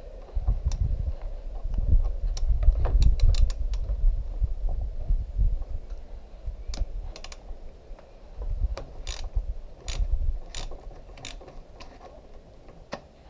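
Socket ratchet clicking in uneven runs while motorcycle fork yoke pinch bolts are loosened, with low thumps of the tool and hands knocking against the handlebar area.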